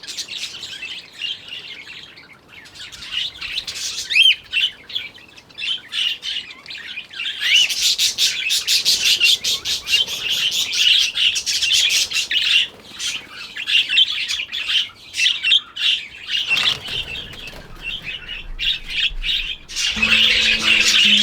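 Budgerigars chirping and chattering in quick high chirps, sparse at first and much busier from about a third of the way in. Music comes in near the end.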